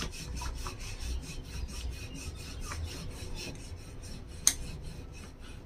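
Wooden rolling pin rolling dough thin on a floured surface, a repeated rubbing as it goes back and forth. One sharp click about four and a half seconds in.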